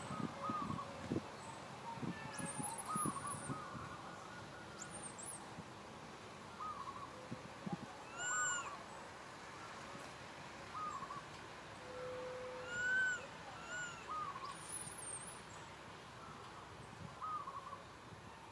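Young long-tailed macaque cooing: short, whimpering calls that rise and fall in pitch, repeated every second or two, with two louder calls about eight and thirteen seconds in. These are distress cries, typical of an infant calling for its mother.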